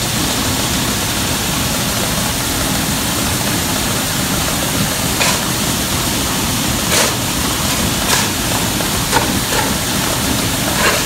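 Grain bin unload auger running while shelled corn drains into it: a loud, steady rushing with a low mechanical rumble underneath, and a few sharp clicks partway through.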